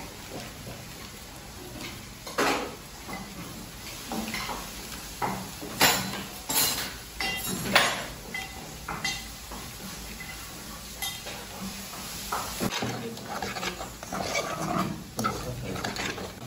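Metal spoon and kitchenware clinking and knocking against a metal saucepan and a ceramic bowl: irregular clinks, with a few louder knocks near the middle.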